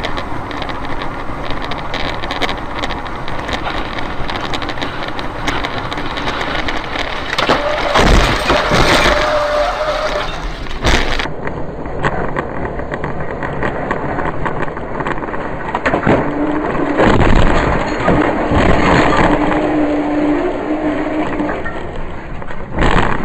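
Loud rushing, rumbling noise with crashing and breaking sounds, loudest about 8 seconds in and again from about 16 to 19 seconds in, with a steady whine over it at those times: an airliner overrunning the runway and breaking up on a highway. The sound changes abruptly about 11 seconds in.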